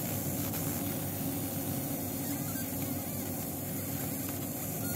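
Steady hum of a fume extractor fan and computer cooling, the loudest part, with the JPT M8 fiber laser marker's own quiet engraving sound as it removes the paint coating from a lighter.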